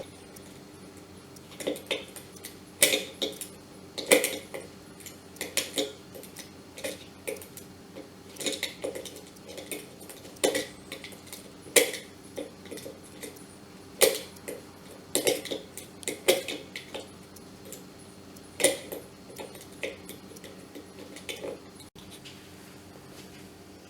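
Pliers working a nut onto the thermostat and heater plate of an electric travel kettle: irregular metallic clicks and clinks, sometimes several in quick succession, over a faint steady hum.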